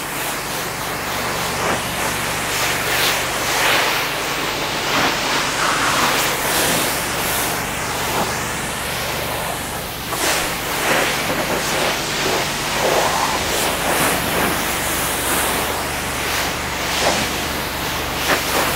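Pressure washer spraying water onto a car's body, a steady hiss that swells and fades as the spray sweeps over the panels, with a steady low hum underneath. The car is being pre-rinsed to cool its sun-heated paint.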